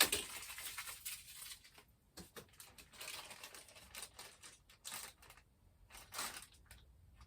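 Packaging being handled and pulled open: irregular rustling and crinkling, with scattered small clicks and taps.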